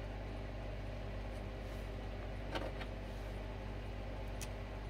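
A steady low mechanical hum, with a few light clicks and taps about halfway through and again near the end, as of small parts and tools being handled.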